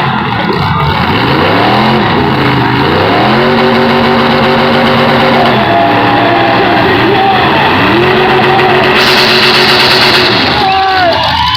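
Pickup truck engines revving hard: the pitch climbs and holds high, drops back, then climbs and holds again, over a steady loud din. A hiss sounds for about a second and a half near the end.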